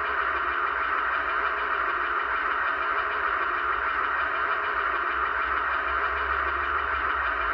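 Onboard sound system of an HO-scale MTH Union Pacific 4500 hp gas turbine locomotive model, playing the turbine's steady whooshing whine through the model's small speaker, with a low hum underneath.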